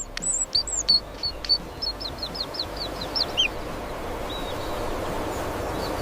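Bird chirping: short, high notes that slide downward, running quickly together about two seconds in, then stopping as a steady rushing noise builds up underneath.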